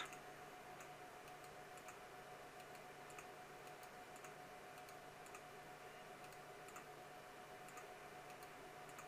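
Faint computer mouse clicks, a dozen or so at irregular spacing, over a steady faint electrical hum and room tone.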